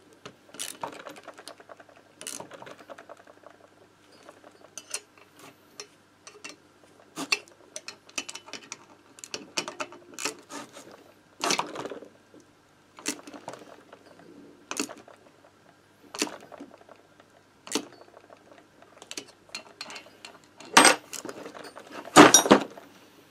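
Irregular metal clicks and clinks of hand tools on the crankcase bolts of a Motobécane AV89 moped engine as the bolts are tightened, with a louder clatter near the end.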